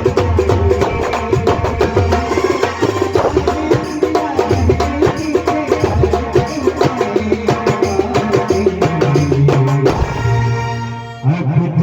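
Instrumental music from a Hindi film song, with fast, even hand-drum percussion over a held melody and bass. About ten seconds in the drums drop out for about a second, leaving a held chord, then the beat comes back.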